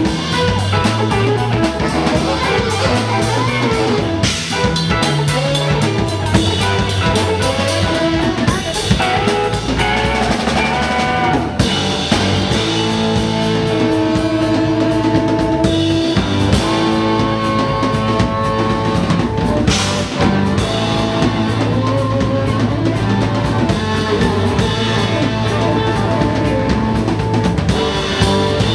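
Live jazz-rock band playing loud: electric guitar, saxophone and drum kit together over a steady bass line, with long held notes from about the middle on.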